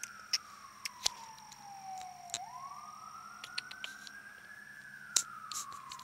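Emergency-vehicle siren in a slow wail, its pitch sliding down over about two seconds, swinging back up, then falling again, with scattered sharp clicks over it.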